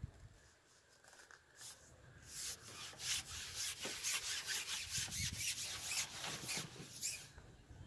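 Fishing pole sliding and rubbing through the angler's hands as it is fed out over the water: a quick series of rubbing swishes, about three or four a second, from about two seconds in until near the end.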